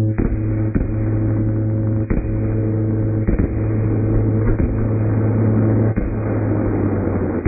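Fireworks finale: several sharp shell-burst bangs at uneven intervals over a steady low droning tone that cuts off about six seconds in.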